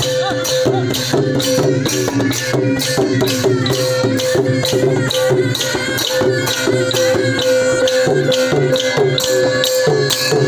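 Thai klong yao long-drum ensemble playing: the long drums are beaten by hand in a steady beat of about three strokes a second, with wooden clappers, while a reed pipe plays a wavering melody above them.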